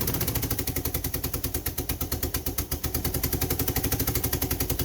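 Mitsubishi engine cranking on the starter motor without catching, a steady, rapid chugging of about nine pulses a second. The narrator traces the no-start to a cracked vacuum hose between the fuel pressure regulator and the intake manifold, which leaves the engine getting too much fuel.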